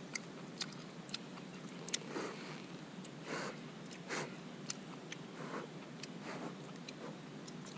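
Faint sounds of eating grilled gooseneck barnacles: scattered small clicks as the shells are peeled by hand, with several short breathy mouth sounds and chewing.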